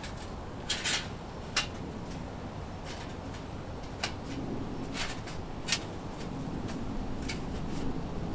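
Scattered short, sharp clicks and knocks, about six of them, over a steady low background rumble that grows a little louder about halfway through.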